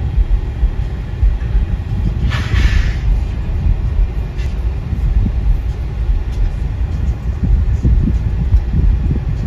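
BNSF diesel-electric freight locomotives running with a steady low rumble, heard from inside a car. A short hiss comes about two and a half seconds in.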